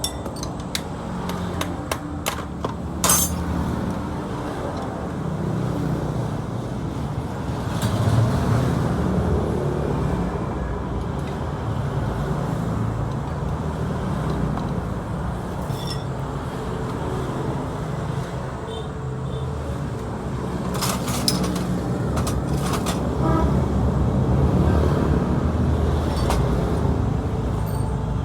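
Yamaha Exciter 135's single-cylinder four-stroke engine running, swelling louder a couple of times, with a few sharp clicks.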